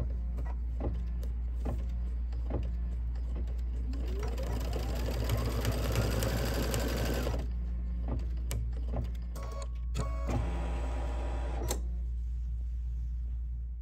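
Computerized embroidery machine stitching, its needle ticking steadily as it sews down a fabric strip in the hoop. About four seconds in a rising whine sets in as the machine speeds up, then cuts off; near the end comes a short lull and a brief hum.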